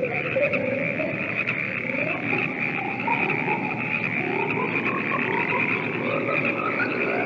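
Dense chorus of frogs croaking: a steady high trill over lower, wavering calls.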